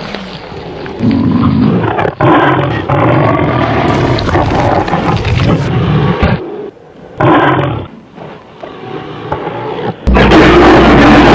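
Monster roar sound effects in a row: a long growling roar with a short break, a brief roar, then the loudest roar near the end.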